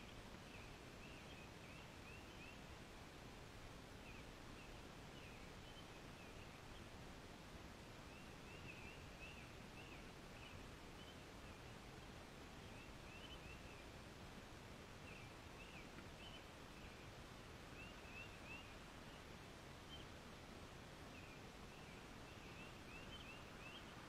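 Near silence: faint outdoor ambience with distant birds chirping, short high calls repeating irregularly throughout.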